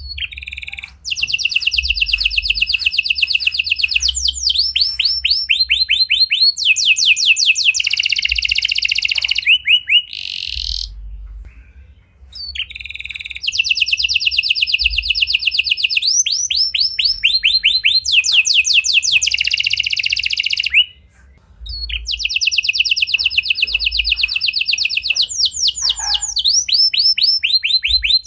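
Red canary singing a long song of rapid trilled phrases, each a fast run of repeated high notes. The song breaks off briefly about ten seconds in and again about twenty-one seconds in.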